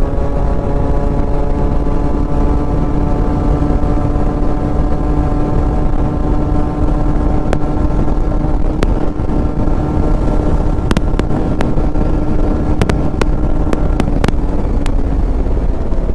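Yamaha RX-series two-stroke single-cylinder motorcycle engine on its stock exhaust, running at a steady pitch that eases down slightly at first. A few sharp clicks come in the second half.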